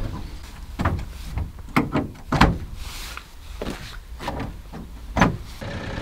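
Irregular clunks and knocks of gear and the canopy hatch being handled at the back of a pickup truck, about five in all, the loudest shortly before the end.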